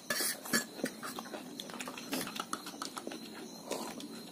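Eating sounds close to the microphone: chewing and mouth smacks, with light clicks of a metal fork against a plate of rice.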